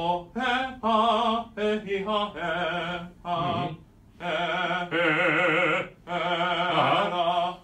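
An unaccompanied man singing a vowel exercise in classical operatic style. It starts as a run of short detached notes, then from about four seconds in becomes longer held notes with vibrato.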